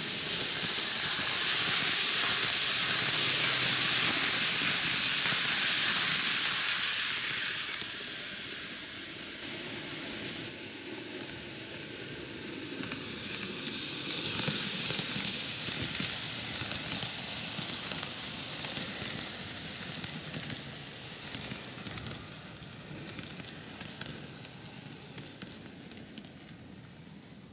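Microace N-gauge Keio 9000 series model electric train running on TOMIX plastic-roadbed track: a steady hissing rolling noise of wheels and drive with faint rapid ticking. Loudest for the first several seconds as it passes close, it swells again midway and fades near the end.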